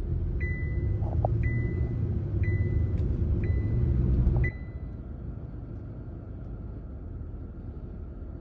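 Car cabin noise while driving in a storm: a steady low rumble of engine and road, with a short high beep about once a second. About halfway through the sound drops suddenly to a quieter steady rumble and hiss.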